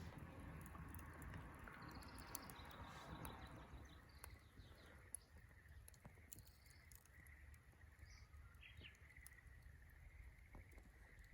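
Faint outdoor ambience: scattered small crackles from a wood fire, with birds chirping now and then over a low steady rumble.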